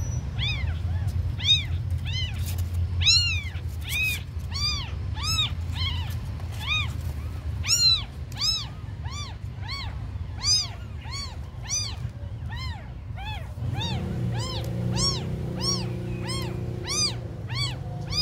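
Several newborn kittens mewing without a break: thin, high cries that rise and fall, about two a second, overlapping one another. A low steady hum joins them about three-quarters of the way through.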